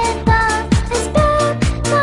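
Upbeat electronic music, a kick drum beating a little over twice a second under a high melody.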